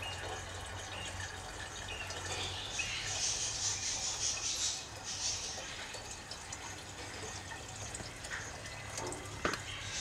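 Tap water running steadily through a YF-S403 water flow sensor at about 12.5 litres a minute, with a steady low hum underneath and a single click near the end.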